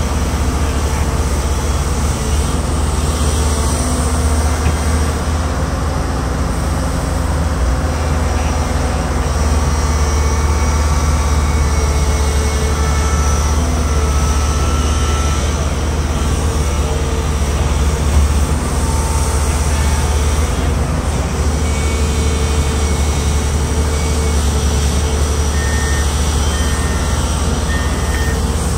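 Hyundai Robex 210 crawler excavator's diesel engine running steadily under load, with faint whining tones coming and going as the hydraulics work the boom and bucket.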